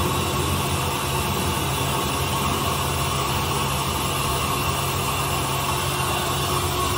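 Rockwell 20-inch vertical band saw running empty in high speed, a steady, unchanging motor and blade sound.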